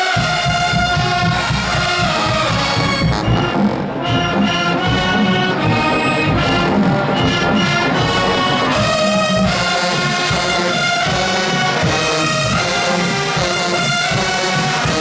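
Marching band playing loud brass, trombones and trumpets, over heavy low drums that come in at the start.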